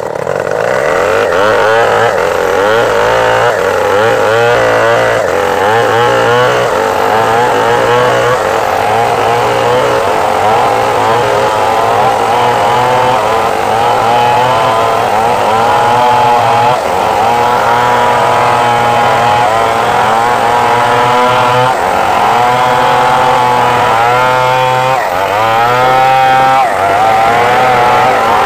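Stihl 381 two-stroke chainsaw running flat out under load, ripping lengthwise along a large log. The engine note wavers constantly as the chain bites, dipping briefly a few times.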